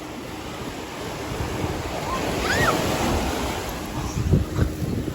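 Ocean surf washing against the shore, swelling about halfway through, with a short high chirp in the middle and a few low knocks near the end.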